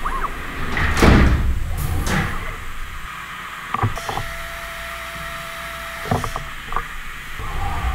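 Ibarmia CNC milling machine moving its axes after a cut, with no cutting going on: two whooshing sweeps about one and two seconds in, a few clicks, and a steady whine for a couple of seconds in the middle.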